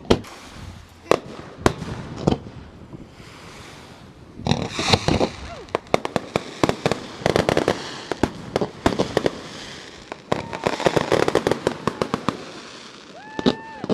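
Aerial fireworks: a few separate sharp bangs, then dense volleys of rapid crackling bursts, with short whistling tones near the end.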